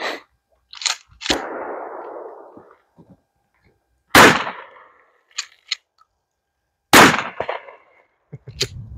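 Two 12-gauge shotgun shots about three seconds apart, Aguila short-shell slugs fired from a Mossberg Maverick pump shotgun. Each shot is loud with a short tail, and two sharp clicks come between them. Smaller clicks and a brief hiss come in the first couple of seconds.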